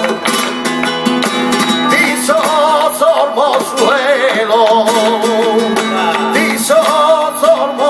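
Flamenco cante por soleá apolá: a male singer's long, wavering melismatic line over flamenco guitar, with rhythmic handclaps (palmas).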